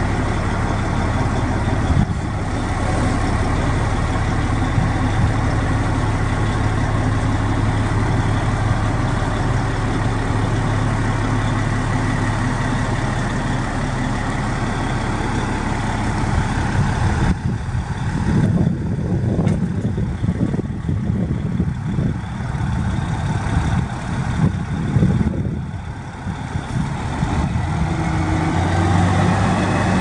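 2007 Caterpillar 735 articulated dump truck's diesel engine running steadily while the dump body comes down. About 17 seconds in the sound turns rougher and uneven, and near the end the engine note steps up as the truck moves off.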